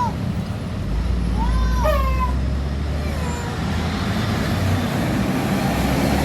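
A heavy vehicle's engine running close by, a low steady drone that starts about a second in, with a few short rising-and-falling high-pitched calls over it.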